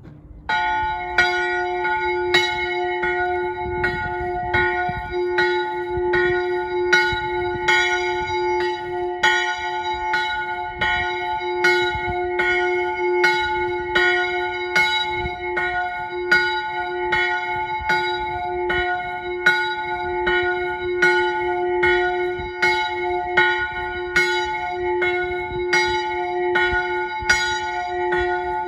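The single small turret bell of the Marienkapelle on the Sulperg, Wettingen, ringing. It begins right at the start, and its evenly spaced strokes come about one and a half times a second over a steady hum that rings on between them.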